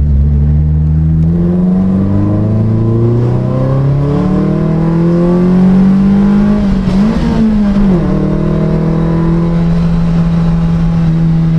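Onboard sound of a Lotus Type 25 racing car's engine accelerating. The pitch climbs, drops once at a gear change about two seconds in, then climbs again. It wavers briefly around seven seconds in and then holds a steady pitch.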